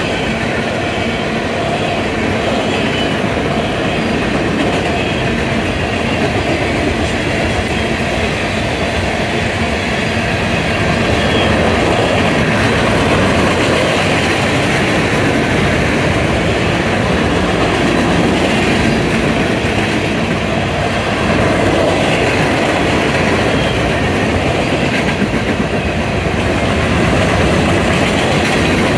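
Train rolling past with a steady, continuous wheel-on-rail noise that swells slightly a few times.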